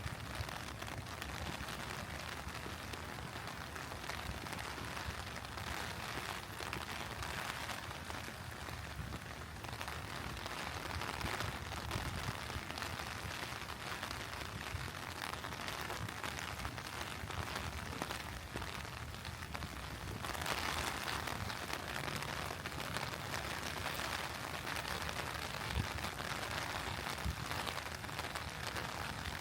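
Steady rain falling, a continuous hiss of drops. The rain grows heavier about two-thirds of the way through.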